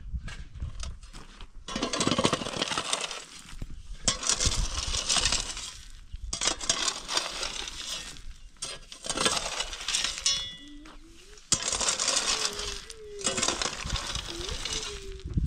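A mattock hacking into and dragging through stony soil, loose stones and gravel scraping and clinking, in repeated strokes about every two seconds.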